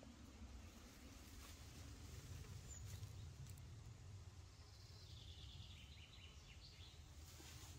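Near silence: faint outdoor background with a steady low rumble, and faint bird chirps about five seconds in.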